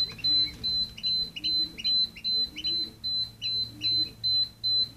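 Rapid, evenly spaced high-pitched electronic beeping, about two and a half beeps a second, from the open egg incubator's alarm, with faint chick cheeps under it.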